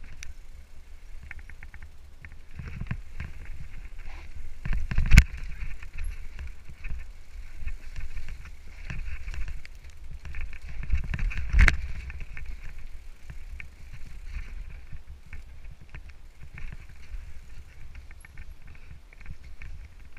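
Mountain bike rattling down a rough trail, heard from a helmet-mounted camera: wind rushing over the microphone, tyres rumbling over boards, roots and rock, and the chain and frame clattering. Two hard knocks, about 5 and 11.5 seconds in, the first the loudest, as the wheels hit or land on obstacles.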